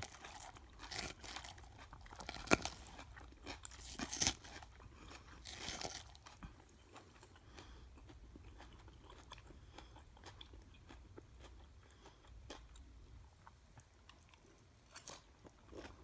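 Close-miked chewing of a dressed salad of lettuce and raw vegetables: crisp crunching bites in the first six seconds, with two sharp loud crunches, then quieter wet chewing with small clicks for the rest.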